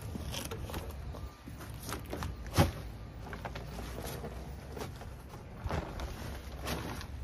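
Potting soil being dumped and handled: irregular rustling and scraping, with one sharp knock about two and a half seconds in.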